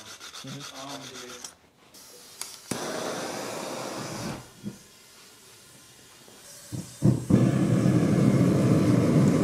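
A propane hand torch hisses at the mouth of a propane forge. About seven seconds in, the forge's burners catch with a sudden whoomp and then run steadily and loud. The air chokes are fully closed, so the propane runs rich and burns as flames outside the forge.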